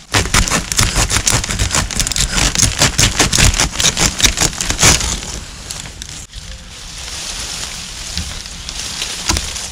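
Victorinox Huntsman pocket-knife saw cutting through a green bamboo cane in quick, rapid strokes for about five seconds. After that comes a steadier rustle of leafy bamboo canes being handled, with a few light clicks.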